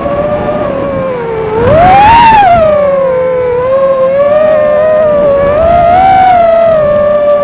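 FPV drone's electric motors whining in one loud gliding pitch. The pitch swoops up and back down about two seconds in, then wavers gently with the throttle.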